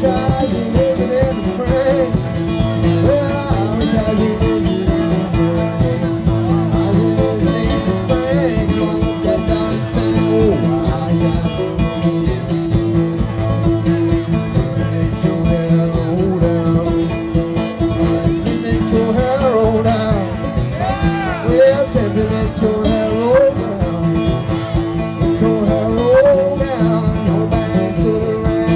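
A banjo and an acoustic guitar playing together in a live bluegrass-style duet, with a steady picked rhythm.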